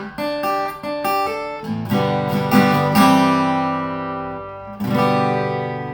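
Acoustic guitar playing the closing bars of the song with picked notes and strums, ending on a chord struck about five seconds in that rings and fades away.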